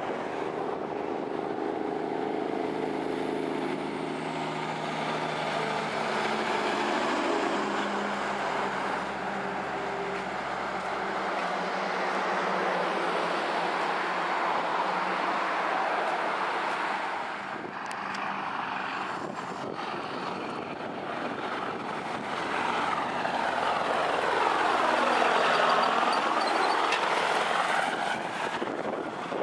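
Heavy diesel trucks hauling cane bins driving past one after another: engine running with steady tyre and road noise. The loudest pass-by comes about 25 seconds in.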